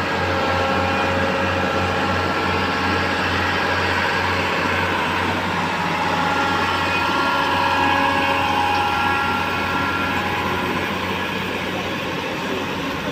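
A railway track-renewal machine's engine running steadily, with a low hum and steady higher whining tones over it.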